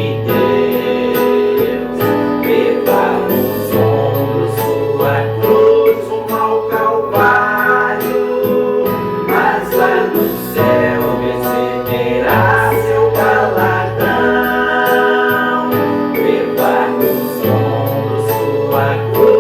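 Gospel music with a steady beat.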